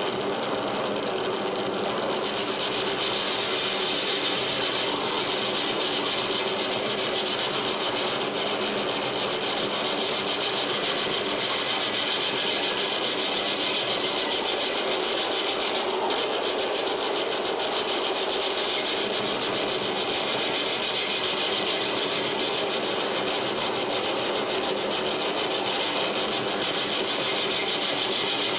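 Harsh noise music played live on electronics: one dense, unbroken wall of noise, with a bright hiss high up over a rough, churning lower layer. The high hiss grows stronger about two seconds in and then holds.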